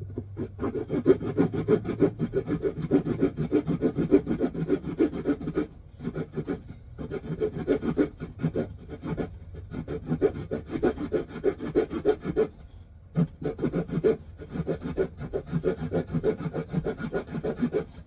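Small folding saw blade sawing across a wooden stick in quick, even back-and-forth strokes, cutting the angled notch. The strokes stop briefly twice, about six and thirteen seconds in.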